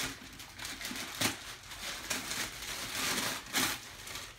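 Christmas wrapping paper being torn and crumpled by hand off a gift, in a string of rustling, crinkling surges, loudest about a second in and again around three and a half seconds.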